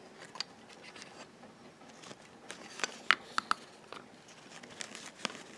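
Small plastic clicks and taps of toy pet figures and miniature plastic furniture being handled and set down, with a cluster of sharper clicks about three seconds in.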